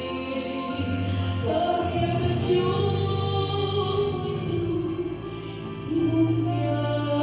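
A Christian song sung over accompaniment, with long held vocal notes above sustained bass notes that shift about a second and a half in and again about six seconds in.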